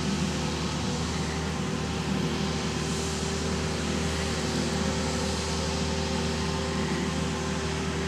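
Diesel engine of a JCB compact track loader running steadily under load while dozing dirt with a front blade, a constant hum with no change in engine speed.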